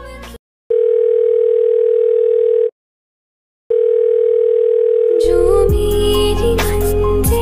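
Telephone ringback tone heard through a phone: a single steady tone lasting about two seconds, a second of silence, then the tone again, as a call rings out at the other end. Music cuts back in about five seconds in.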